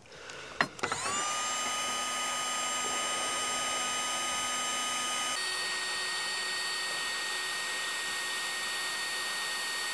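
Heat gun switched on with a click, its fan spinning up within a second and then blowing steadily with a high whine while it shrinks a heat-shrink crimp connector onto a wire. The whine changes pitch about halfway through.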